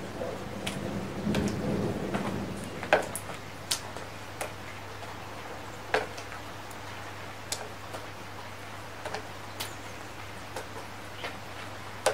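Light rain: single raindrops ticking sharply and irregularly on hard surfaces, spaced a fraction of a second to a second or so apart, over a faint steady low hum. A low rumble swells and fades in the first two seconds.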